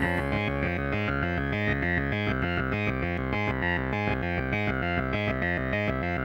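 Background music: fast synthesizer and electric-keyboard notes over a steady beat.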